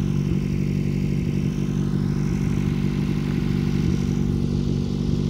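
Toyota Cynos EL44's 5E-FHE four-cylinder engine idling steadily, with a few faint clicks over it.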